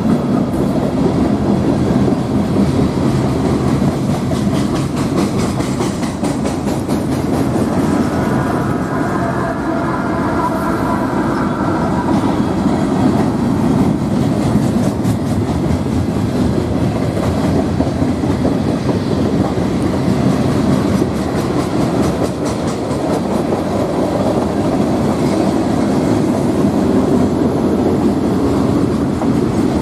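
CSX freight train's cars rolling past at close range, a steady loud rumble with the wheels clacking over the rail joints.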